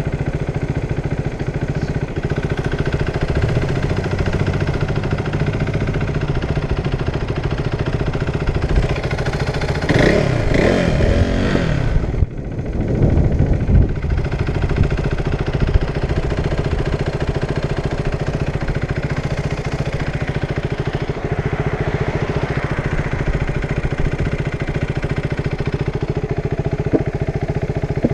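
Motorcycle engine idling steadily while stopped. About ten seconds in there is a louder stretch of a few seconds in which the pitch falls.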